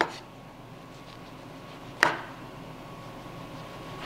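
Chef's knife slicing through lion's mane mushroom into steaks and knocking onto a wooden cutting board: sharp knocks about two seconds apart, three in all.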